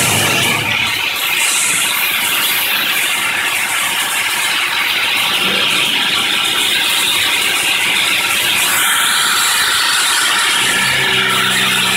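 Haas VF6SS CNC mill cutting A514 T-1 steel dry with an ISCAR Chatterfree half-inch four-flute endmill on a high-speed dynamic toolpath. The cutting noise is loud, steady and high-pitched.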